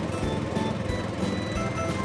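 Background music with a steady beat, about three beats a second, and short melody notes at changing pitches.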